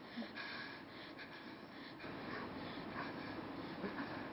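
Quiet room tone with faint breathing.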